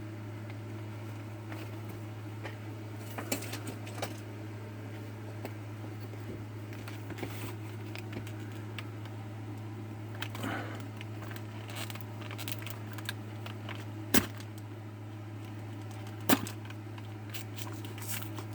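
Hands prying and tearing at a small glued cardboard box: scattered clicks, scrapes and rustles, with a few sharp snaps, two of them late on, over a steady low hum.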